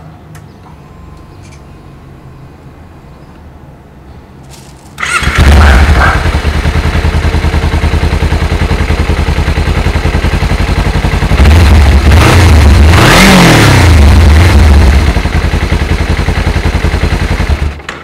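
Sport motorcycle engine starting about five seconds in, idling, then revved once, its pitch rising and falling, before settling back and being switched off abruptly near the end. Heard through a camera's built-in microphone.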